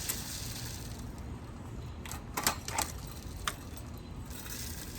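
A few sharp plastic clicks and taps as a bird tube feeder is handled and emptied of seed, four of them bunched together about halfway through, over a low steady background rumble.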